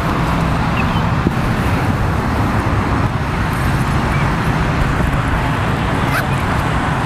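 Steady low rumble of outdoor background noise, with a couple of light clicks.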